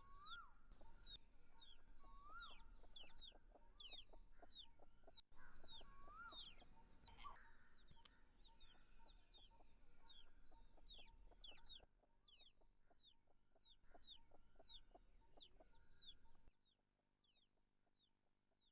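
Faint farmyard ambience: chickens clucking, with short high chirps falling in pitch about twice a second. It drops away near the end.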